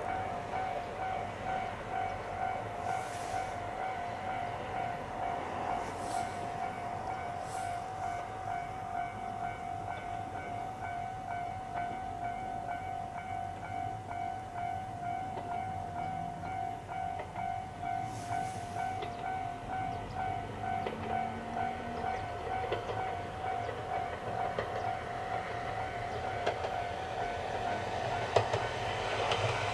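Level-crossing warning bell ringing in a steady, evenly pulsing tone, the signal that a train is approaching. Near the end the approaching Ohmi Railway electric train grows louder, its wheels clicking over the rail joints.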